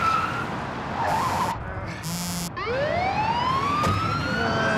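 Police car siren winding up about halfway through: a single wail rising slowly in pitch. Before it, two short bursts of hiss.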